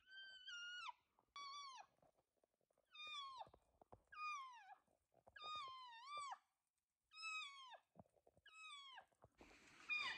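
Cow elk mewing: a series of about eight short, high, whistly calls, each bending down and then back up in pitch, some given as quick doubles. Near the end a rustle of clothing or handling comes in.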